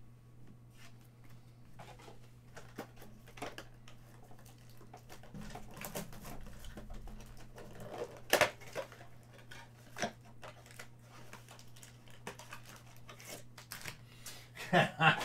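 Handling noise of a cardboard trading-card blaster box and its foil card packs: rustling, tapping and light clicks, with louder crinkling scrapes about eight and ten seconds in, over a low steady hum. A man starts to speak at the very end.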